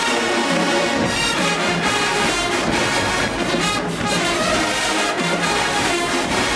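HBCU marching band playing a song, with full brass and percussion hits.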